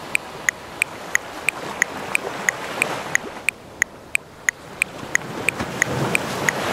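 Metronome clicking steadily at 180 beats a minute, about three clicks a second, over the wash of ocean waves that swells toward the end.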